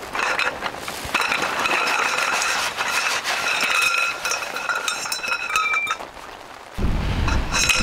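Jointed metal tent-pole sections clinking and rattling against each other as they slide out of their bag and drop in a pile, with a ringing metallic jangle for several seconds.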